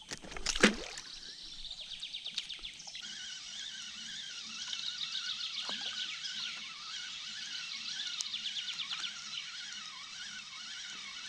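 A sharp swish about half a second in as a feeder fishing rod is cast, followed by background music with a regularly wavering melody.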